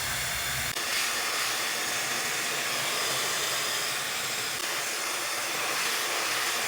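Handheld hair dryer blowing a steady hiss of air, with a click just under a second in as its sound shifts higher and the low rumble drops away.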